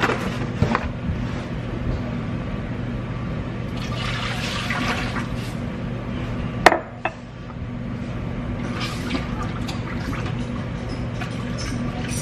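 Milk pouring steadily into a large stainless stockpot of melted butter and flour, the start of a white sauce for baked macaroni and cheese. A steady low hum runs underneath, and there is one sharp clack about two-thirds of the way through.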